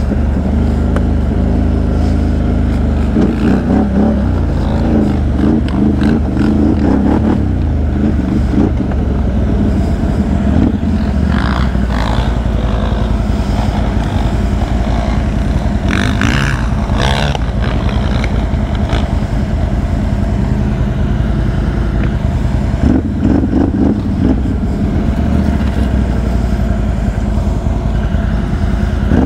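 Can-Am Outlander XMR 1000 ATV's V-twin engine running while being ridden, its pitch rising and falling with the throttle. Brief bursts of noise come about eleven and sixteen seconds in.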